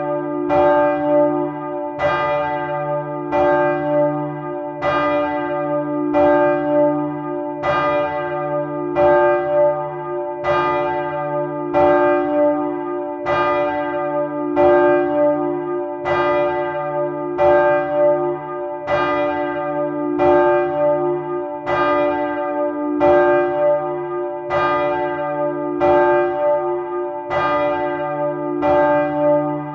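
Large bronze church bell, cast by Michiels of Tournai in 1957, swung full-circle and struck by its clapper about every 1.2 seconds. Each stroke rings on under the next with a deep hum and bright overtones.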